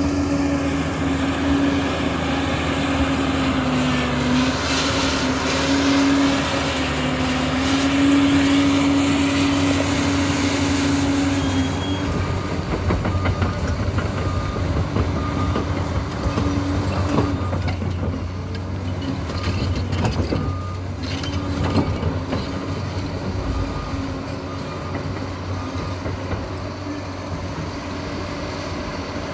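Liebherr PR 746 crawler dozer working with its engine running under load, carrying a steady whine that dips briefly in pitch about four seconds in. From about halfway there is a noisier rattle with scattered clanks, thickest a little past two-thirds of the way through.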